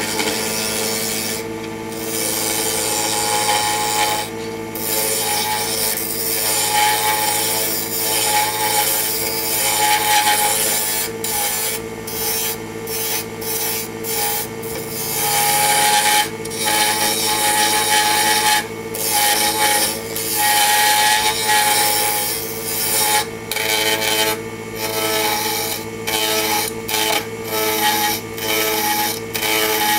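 A wood lathe spinning a dry zebrano pen blank at about 3000 RPM while a carbide cutter roughs it down: a scraping, hissing cut over the steady hum of the lathe motor. The cut breaks off for moments again and again as the tool lifts away, more often in the second half.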